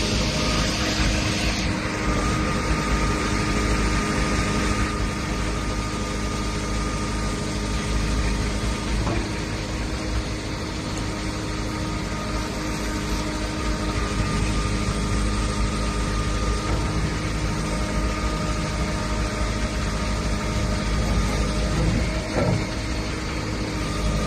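JCB 4CX backhoe loader's diesel engine running steadily at a constant speed.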